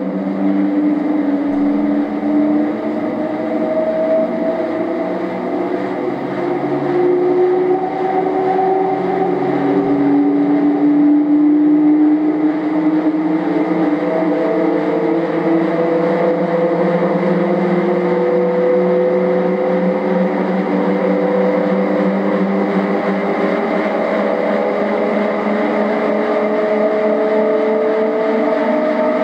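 Rolling-resistance test rig running: a Specialized S-Works Ground Control mountain-bike tyre spinning on a motor-driven drum, giving a steady mechanical hum and whine. Several tones in the whine slowly rise in pitch.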